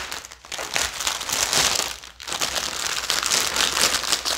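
Plastic packaging crinkling as a bundle of bagged diamond-painting drills is handled and pulled open, with a short lull about two seconds in.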